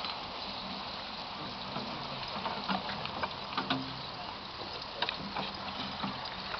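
Water running and splashing from a horse-drawn water-wheel transplanter, with scattered sharp clicks and knocks throughout.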